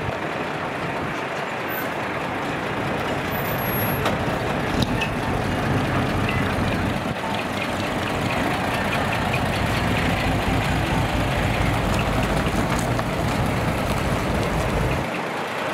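Large diesel truck engine idling close by, a steady low rumble under the general noise of an outdoor crowd. The rumble drops away abruptly near the end.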